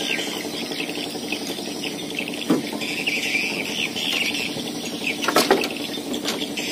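Birds chirping over a steady low hum, with a sharp knock about five and a half seconds in.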